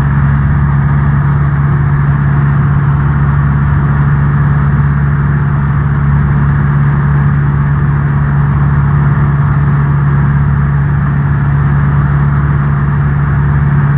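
The Cessna 172N's four-cylinder Lycoming O-320 engine and propeller droning steadily in cruise, heard from inside the cabin, with a constant low hum and a dense rushing noise above it.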